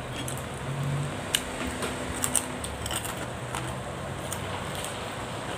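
Close-up eating sounds: scattered wet lip smacks and mouth clicks as a person picks at and chews curried fish head with her fingers, over a steady background hum.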